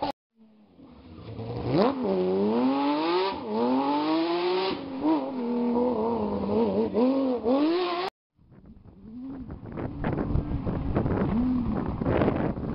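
Porsche 997 GT3 rally cars' flat-six engines at full throttle, the engine note climbing and dropping again and again as a car approaches. The sound cuts out about eight seconds in and comes back with a second car, rougher and noisier, full of sharp cracks.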